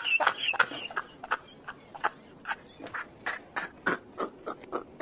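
A man's helpless laughter: a string of short breathy gasps, a few a second, louder at first and then fainter.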